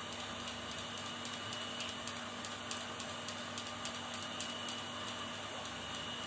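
A cat eating canned pâté cat food, chewing and licking, with irregular small clicks and smacks over a steady background hiss.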